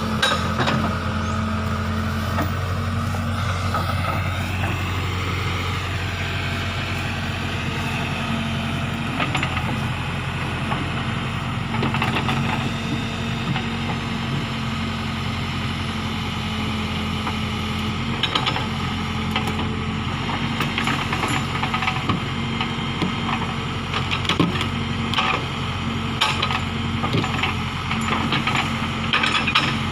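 Case backhoe loader's diesel engine running steadily, with a hydraulic whine that rises and falls a few seconds in. Scattered sharp clanks and knocks, more frequent in the second half.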